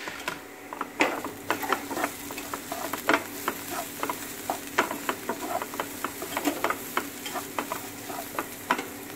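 A wooden spatula stirring and scraping fried chopped onion and dry spices around a frying pan, knocking against the pan several times a second at an uneven rhythm, over a steady sizzle of frying.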